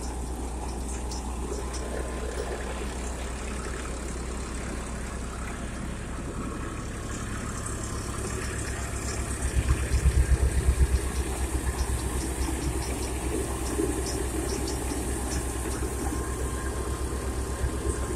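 Eicher 380 tractor's diesel engine running steadily under load, driving a Govind paddy thresher, with the thresher's machinery running alongside. The engine's low throb grows louder about halfway through and stays stronger afterwards.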